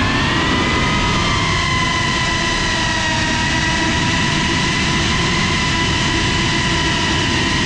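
GEPRC CineLog 35 cinewhoop's brushless motors and ducted 3.5-inch propellers whining steadily at several pitches in flight, picked up by the GoPro mounted on the drone, over a low rush of air.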